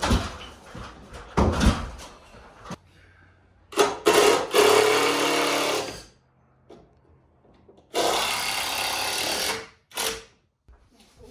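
Two wooden knocks, then a power drill runs twice for about two seconds each, driving fasteners into the roof framing lumber.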